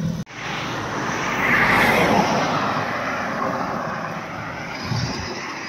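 A vehicle passing on the road, its engine and tyre noise rising to a peak about two seconds in and then fading away.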